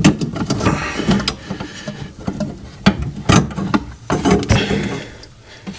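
Hands handling a plastic tub and a pipe-cutting tool under a sink: irregular knocks, clicks and scrapes.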